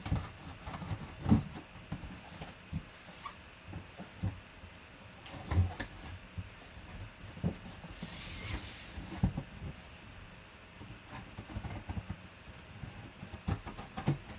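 Hands opening and handling a cardboard shipping box: scattered knocks, taps and scrapes of cardboard, the loudest knock about a second in, with a longer scraping noise of about a second around eight seconds in.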